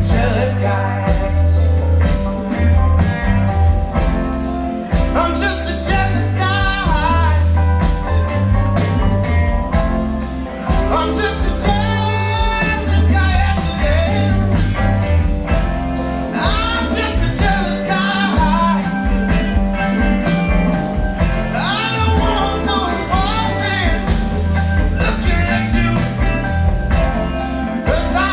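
Live soul ballad with a singer's wavering vocal runs over a band and heavy bass, played back in a room through Polk Audio Signature 60 tower speakers and two Rythmik FVX15 15-inch subwoofers.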